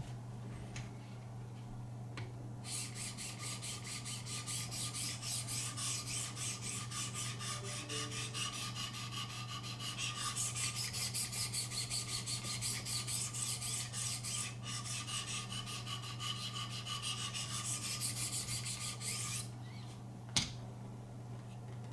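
800-grit diamond stones of a Wicked Edge guided sharpener scraping along a steel knife blade in quick, even strokes. The strokes start about three seconds in and stop a little before the end, followed by a single sharp click.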